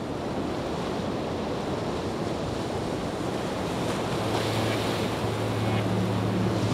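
Ocean waves washing on a shore, a steady surf noise that has just faded in. About four seconds in, a low held music tone comes in under it, and further tones join near the end as the music builds.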